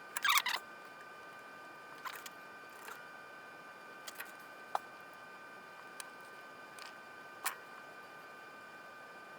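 Small clicks and taps of hands and tools handling wires and capacitors on a radio chassis: a quick cluster at the start, then single ticks every second or so, over a faint steady high whine.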